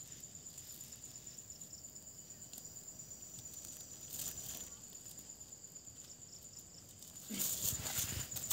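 An insect trilling steadily at a high pitch in a fast, even pulse. Near the end, louder rustling sets in as someone moves through leaves and undergrowth.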